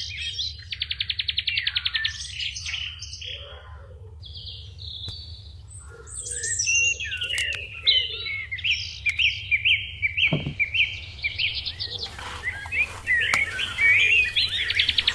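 Birds chirping and trilling: a rapid trill about a second in and another near the end, with a run of repeated short calls in between, over a steady low hum.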